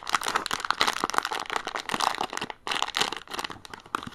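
Foil blind-box pouch crinkling as fingers work it open, a dense run of crackles with a short pause a little past the halfway point.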